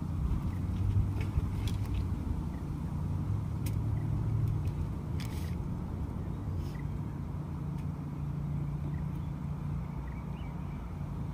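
A low, steady engine hum from a motor out of sight, with a few light clicks in the first half.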